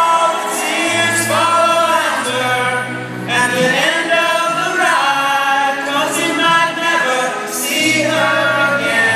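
A man singing long held notes over acoustic guitar accompaniment, live in a large hall.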